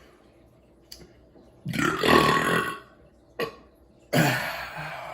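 A man burping twice after drinking beer: a long burp about two seconds in and a second one about four seconds in, with a short click between them. Both are low rather than high-pitched.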